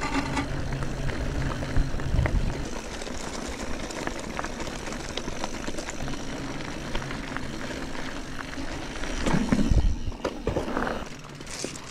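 Riding a bike-park lift, recorded through a chest-mounted GoPro: a steady machine hum stops about two and a half seconds in. After that come rushing noise and scattered clicks and rattles, with a louder low rumble and clatter about nine and a half seconds in.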